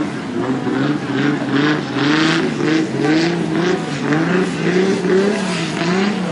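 Off-road 4x4's engine revving up and down over and over as the truck churns through deep mud, its pitch rising and falling about once a second, with surges of spinning tyres and slinging mud.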